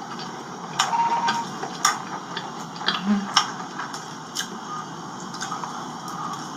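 Close-up eating sounds: irregular crisp clicks and crunches of someone chewing cheese-stuffed shrimp, over a steady hiss.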